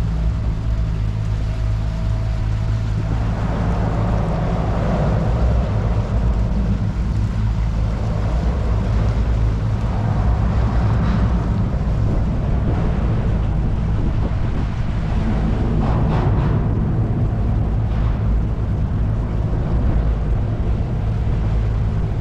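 Outboard motor of a small jon boat running steadily at cruising speed, with wind and water rushing past.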